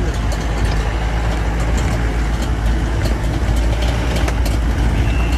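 Vehicle riding along a rough dirt road, heard from inside the cab: a steady low engine and road rumble with scattered short rattles and knocks.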